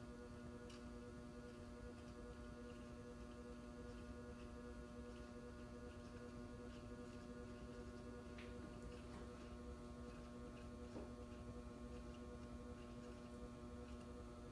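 FASCO ceiling fan motor running at speed with a steady electrical hum, with a few faint ticks.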